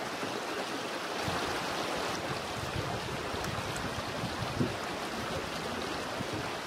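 Rough limestone pieces being shifted and settled into a sand bed against a wooden form: soft scrapes and a few low knocks, one sharper knock a little past halfway. Under it runs a steady rushing noise.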